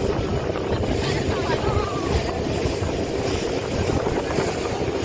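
Motorboat engine running steadily as the parasail tow boat cruises, with wind buffeting the microphone.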